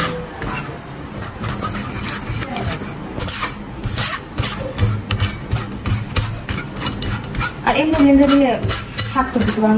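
A metal spoon scraping and pressing cooked mango purée through a wire-mesh strainer, in repeated short strokes.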